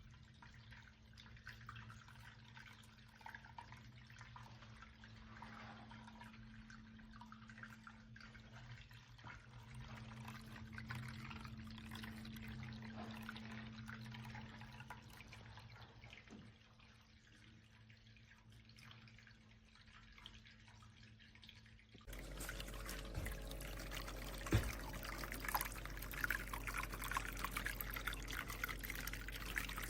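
Small resin bowl waterfall fountain running: water trickling and dripping as a submersible pump recirculates it, over a steady low hum. About two-thirds of the way through, the sound cuts abruptly to a louder, fuller splashing.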